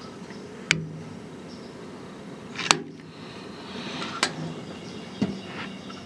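Vehicle door lock mechanism clicking as the lock is worked: four sharp clicks spread a second or two apart, the second the loudest.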